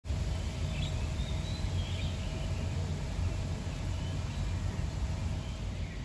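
Steady low outdoor rumble with a few faint bird chirps in the first two seconds and once more a little later.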